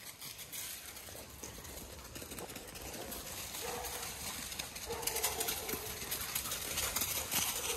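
Rustling, with a faint animal call held for about half a second to a second, heard about three times in the second half.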